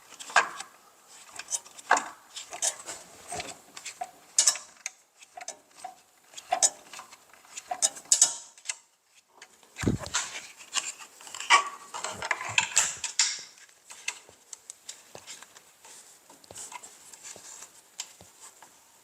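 Irregular metallic clicks, scrapes and rattles of an Allen key turning the mounting screws of a miter saw's dust chute while the parts are handled, with one heavier thump about ten seconds in.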